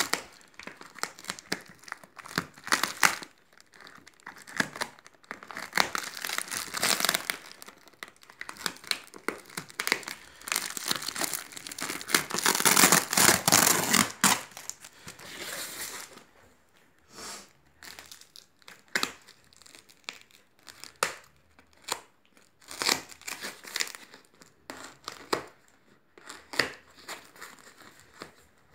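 Brown packing tape and foam wrapping on a parcel being cut open with scissors and torn apart, with crinkling and tearing of the plastic tape and foam. The tearing is loudest and most continuous about halfway through, then gives way to scattered fainter rustles and snaps.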